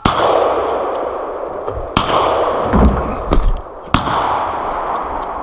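Three gunshots about two seconds apart, each followed by a long rolling echo, fired by a hunter at a buck running ahead of deer hounds.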